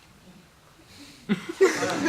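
A quiet pause, then a person's voice starts suddenly about a second and a half in and grows loud.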